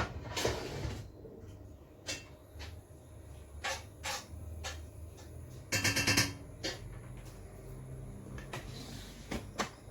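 Intermittent clicks and knocks of a utensil against a cooking pot, with a brief clatter of several knocks about six seconds in, while onions cook in oil.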